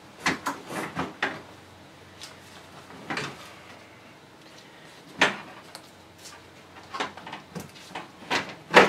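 Radiator knocking and clicking against the surrounding plastic and rubber parts as it is lowered into the engine bay and settled into its cradle: scattered knocks, a sharp one about five seconds in and a run of them near the end.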